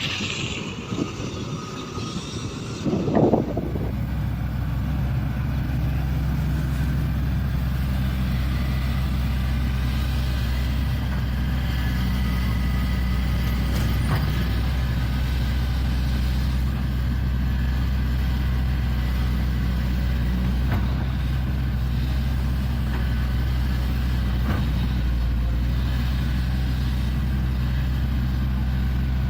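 Diesel engine of a Shantui excavator running steadily under work. A short, loud, uneven noise comes about three seconds in, and then the engine settles into an even drone.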